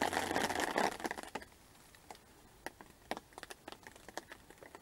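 Close crinkling and rustling for about the first second and a half, then scattered faint clicks and ticks.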